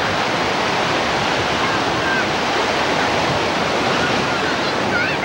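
Ocean surf breaking and washing around the waders, a steady loud rush of water. Faint distant voices come through, more of them near the end.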